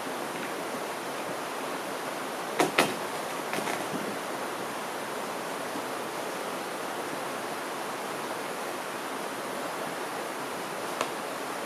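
A steady rushing hiss runs throughout. A pair of sharp knocks comes about two and a half seconds in, then softer ones about a second later, as a wooden cedar-strip canoe is set down at the rocky water's edge, with another single knock near the end.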